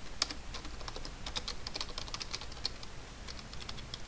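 Typing on a computer keyboard: quick, irregular keystrokes, several a second, with a few short pauses between runs.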